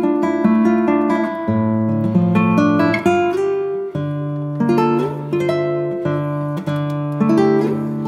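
Instrumental background music on acoustic guitar: notes picked one after another in a flowing pattern over low sustained bass notes.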